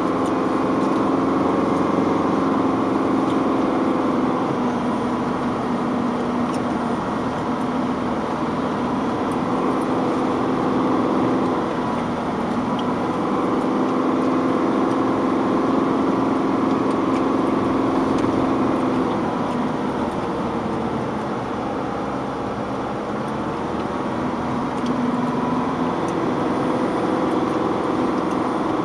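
A vehicle's engine running steadily as it drives along a wet dirt road, heard from inside the cab, its note shifting up and down with the throttle.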